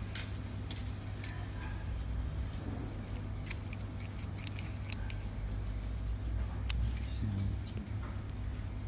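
Scissors snipping a dozen or so times while trimming chili seedlings, in quick runs of sharp clicks: a cluster in the middle and two more a little later.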